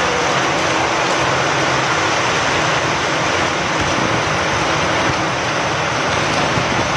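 Steady rain with wind: an even, dense hiss that does not change.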